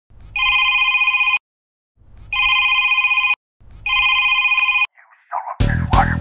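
Mobile phone ringtone ringing three times, each ring about a second long with short gaps, its steady electronic tones swelling in at the start of each ring. Near the end, music comes in suddenly.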